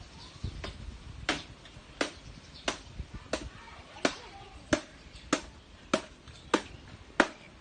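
Steady, evenly spaced blows of a hand tool striking, about three every two seconds.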